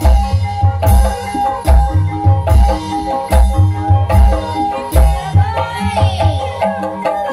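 Live Banyumasan gamelan music accompanying an ebeg horse dance: deep drum strokes fall roughly once a second under a repeating melody on tuned percussion, with sharp metallic strikes.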